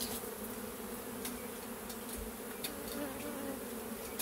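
Many honeybees in flight buzzing steadily: a continuous hum with a low tone and a higher one above it, with a few faint clicks.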